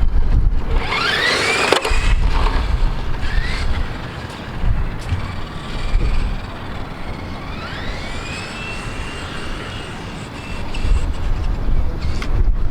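Electric motor of a remote-control car whining, rising in pitch as it speeds up near the start and again later, where it rises and then holds a steady pitch for a few seconds. Wind buffets the microphone with a low rumble throughout.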